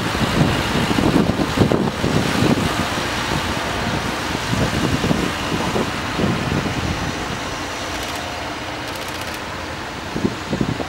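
Sanriku Railway 36-700 series diesel railcars running under power as the two-car train pulls out of the station, a low uneven engine rumble that slowly grows fainter as the train draws away.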